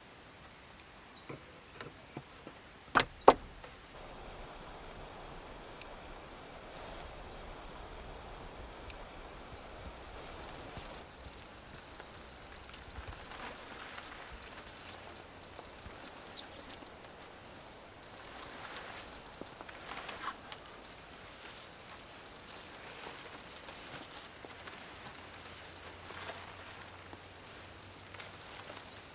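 Woodland ambience with small birds chirping now and then. Two sharp knocks about three seconds in, and scattered lighter knocks and rustling through the rest.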